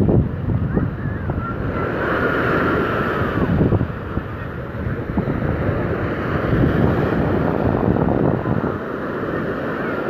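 Sea surf breaking and washing up the shore, with wind buffeting the phone's microphone in a steady low rumble.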